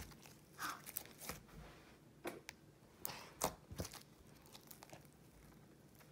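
Thick glossy slime being kneaded and folded by hand to mix in glitter, giving faint sticky crackles and snaps that thin out after about four seconds.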